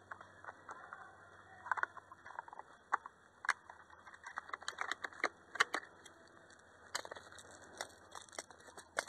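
Footsteps crunching through dry grass and undergrowth, with gear rustling and knocking against the body-worn camera. There are irregular sharp clicks and crackles, the loudest a little past halfway and near the end.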